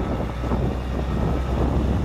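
Volvo VE D12 12.1-litre inline-six diesel of a 2003 Volvo semi tractor running as the truck drives slowly, a steady low rumble.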